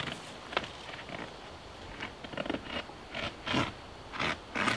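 Heavy vinyl billboard sheeting being cut by hand, a run of short, irregular cutting strokes that get louder and closer together in the second half.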